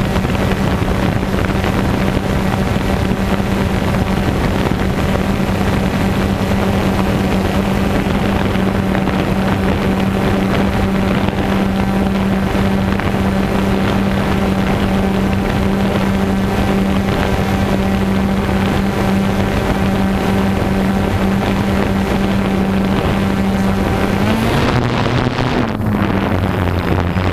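DJI Phantom 2 quadcopter's motors and propellers humming steadily, heard up close from the camera slung beneath it, with wind noise on the microphone. Near the end the pitch rises briefly and settles back.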